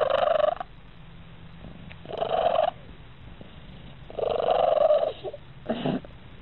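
Siamese cat purring loudly and vocally while being stroked under the chin, in three long drawn-out calls about two seconds apart and a shorter one near the end.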